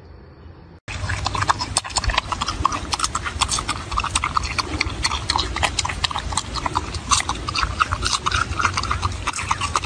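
A marmot eating a whole cucumber, a rapid, irregular run of loud crunching and chewing that starts suddenly about a second in.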